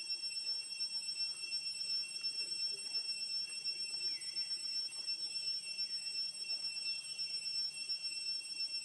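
A steady high-pitched drone, with three short calls falling in pitch, each about half a second long, from about the middle of the stretch on.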